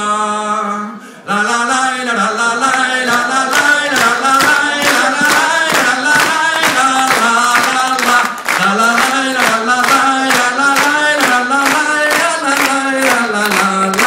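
A man singing a Basque folk song unaccompanied. After a short pause about a second in, the crowd claps along in a steady rhythm, about three claps a second.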